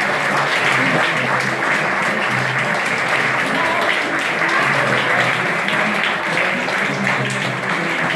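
Audience clapping steadily, with music playing underneath.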